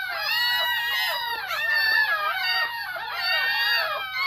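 A litter of young puppies whining and squealing together, many high-pitched cries overlapping and rising and falling in pitch without a break.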